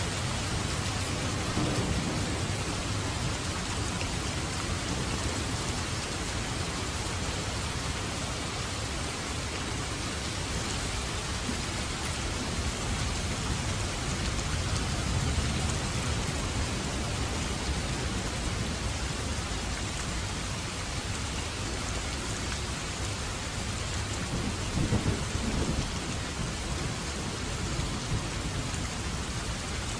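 Steady rain falling, with low rolling thunder rumbling underneath; the rumbles swell about two seconds in and more strongly around twenty-five seconds in.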